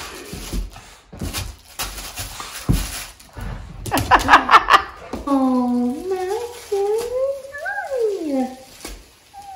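Excited dog vocalizing: one long, wavering whine-howl that climbs and falls in pitch for about three seconds, after a short cluster of quick sharp yips and some rustling of play on the rug.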